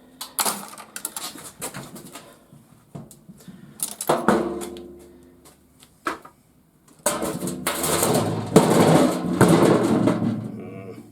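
Metal parts of a garage door opener clanking and scraping as it is taken apart by hand. There are a few separate knocks at first, then a louder, longer stretch of scraping and clatter from about seven seconds in.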